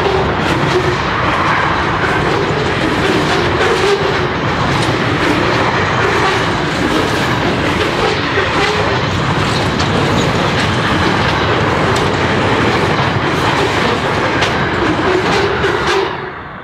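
Louvred freight vans of an SCT intermodal train rolling past at speed: a steady rumble of wheels on rail with rapid, irregular clickety-clack from the wheels crossing rail joints. The sound cuts off suddenly about a second before the end.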